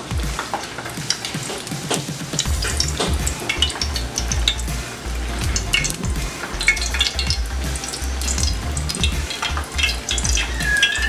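Vegetable oil poured from a bottle into an aluminium pot on the stove, the oil crackling and spitting steadily as it heats in the pan.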